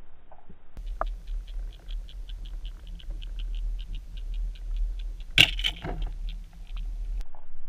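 Underwater sound of a lure being reeled through weeds past a submerged camera: a low water rumble with a steady ticking of about five clicks a second, and two sharp, loud clicks about five seconds in.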